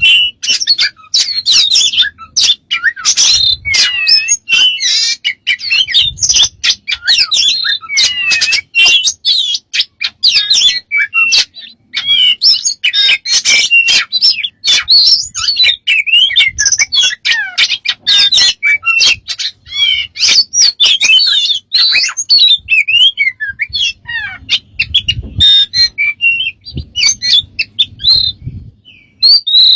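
A bird giving a rapid, continuous string of varied chirps, whistles and squawks, changing from one call to the next with hardly a pause.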